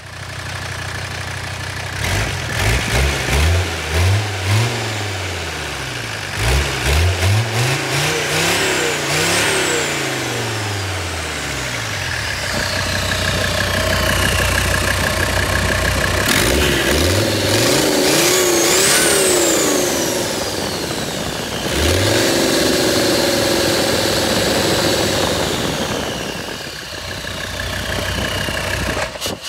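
Mercedes diesel engine revved in quick blips, its AiResearch turbocharger whistling. The whistle climbs high with each rev and then slides slowly down as the turbo spools down, with a steady whine while the revs are held. The turbo is working well after repairs to the wastegate, fuel system and oil feed.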